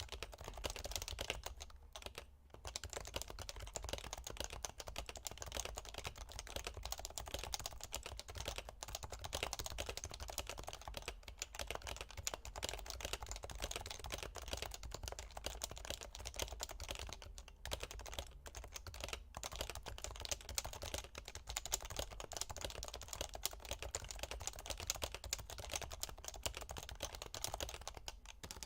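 Typing on a stock HHKB Professional 2 keyboard with Topre electrostatic capacitive switches: a fast, continuous stream of keystrokes broken by a few brief pauses.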